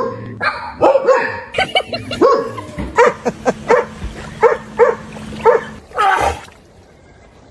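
A dog making odd pitched calls that bend up and down, then a string of short, evenly spaced barks, and one louder call about six seconds in.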